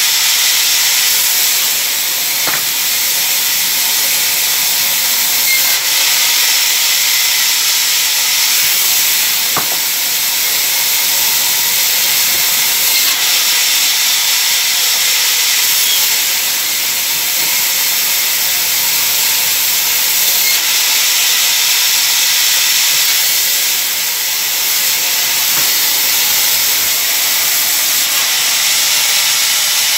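Vertical band saw ripping a mango log into planks: a loud, steady, high-pitched rushing noise.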